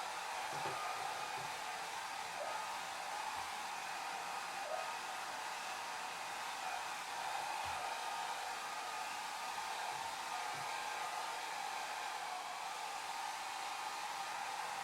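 Hair dryer blowing steadily: an even, airy hiss with a faint motor whine, played as a continuous white-noise track.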